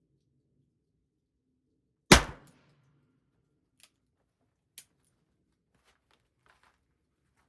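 A single .22 LR shot from a Ruger Super Wrangler single-action revolver, fired with CCI Standard Velocity ammunition, about two seconds in. A few light metallic clicks of the revolver being handled follow.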